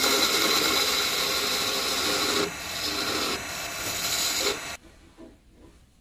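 Turning tool cutting into a spinning cherry blank on a wood lathe: a steady hissing scrape of wood being shaved away. It eases a little about halfway and cuts off abruptly near the end.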